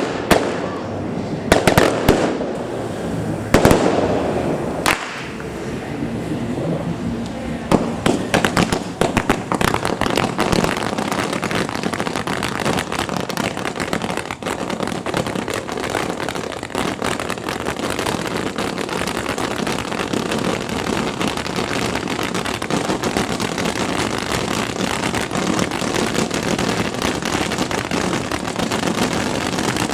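Fireworks going off: a few loud bangs in the first few seconds, then a dense, continuous crackling of many small reports.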